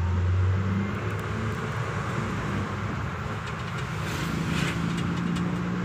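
Car engine running and tyre and road noise, heard from inside the cabin while driving. A low, steady engine hum whose note rises a little about four seconds in.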